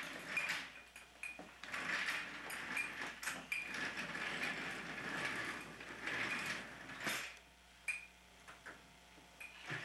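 A baby walker's plastic frame, wheels and tray toys clattering and rolling as the baby moves it about, with scattered knocks and clicks. It goes quieter for the last few seconds.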